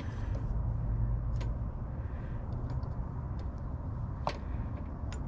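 A few sharp plastic clicks and taps as a halogen headlight bulb is fitted into its wiring plug, over a steady low rumble.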